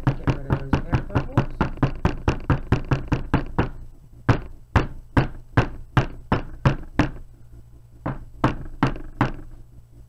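Wooden loaf soap mold rapped again and again on a tabletop to tap air bubbles out of freshly poured soap batter. Sharp knocks come quickly, about six a second, for the first three and a half seconds, then slower with gaps, with a last short run near the end.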